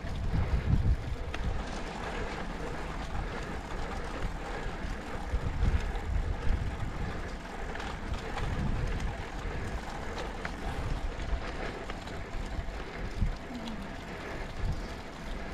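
Wind buffeting a moving cyclist's microphone in irregular gusts, over a steady hiss of road-bike tyres rolling on asphalt.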